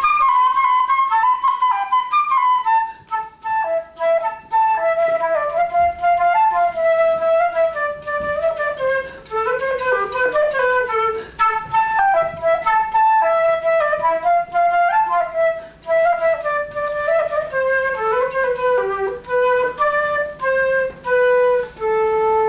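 Solo transverse flute playing a melody note by note, the line drifting lower and ending on a long held low note.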